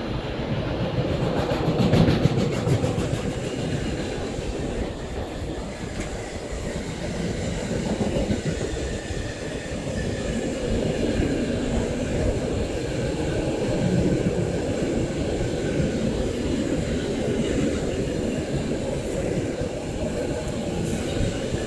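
A train rolling past: a steady rumble of wagons on the rails, with short clicks from the wheels in the first few seconds and again near the end.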